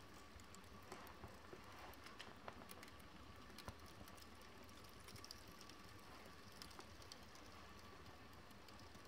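Faint, irregular crackling and ticking of a small flame burning along the edge of a stamp album page as the paper and strips shrivel.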